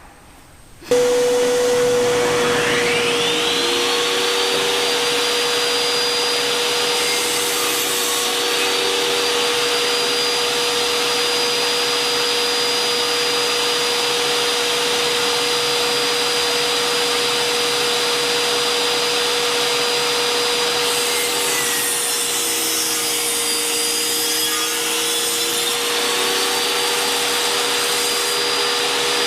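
Table saw switched on about a second in, its blade whine rising as it spins up, then running steadily. Twice it cuts through wood, a short pass and later a longer one of several seconds; each time the whine sags under the load and a rasping hiss joins it.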